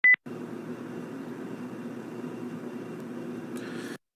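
A short, loud electronic beep at the very start, then a steady low hum of room noise picked up by a phone's microphone, which cuts out just before the end.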